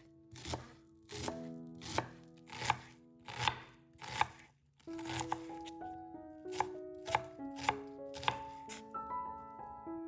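A kitchen knife chopping on a cutting board in slow, even strokes, about one every 0.7 seconds, with a short pause a little before the middle. Background music plays throughout.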